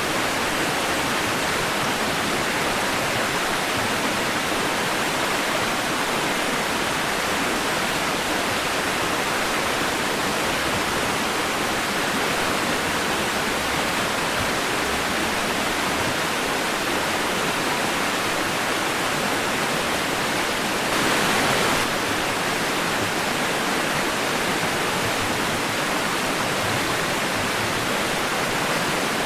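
Steady white noise for lulling a baby to sleep: an even hiss with little bass, briefly a little louder about two-thirds of the way through.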